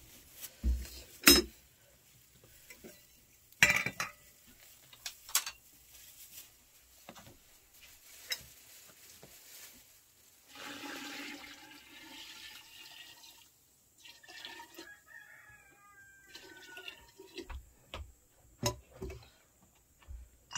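Metal kitchenware knocking and clinking as pots and a kettle are handled, with the loudest knocks in the first few seconds. About ten seconds in, water is poured from a metal kettle for about three seconds.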